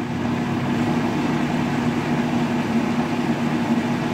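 Countertop blender motor running steadily at a low speed, blending a jar of liquid cranberry purée.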